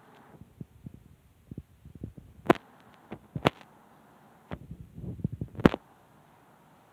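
Close handling noise on the phone's microphone: scattered soft thumps and rustles, with three sharp clicks about two and a half, three and a half and five and a half seconds in.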